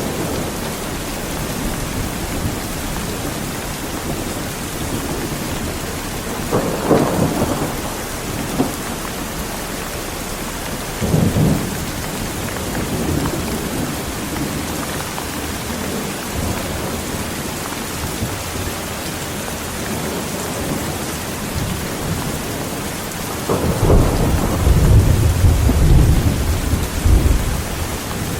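Heavy rain falling steadily, with thunder rumbling: two short rolls in the first half and a longer, louder low rumble near the end.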